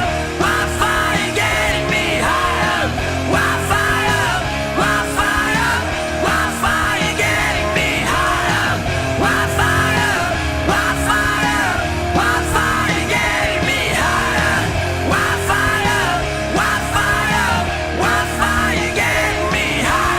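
Horror punk rock song playing loud: a full band with distorted electric guitar, bass and drums, and shouted vocal lines coming back again and again over the top.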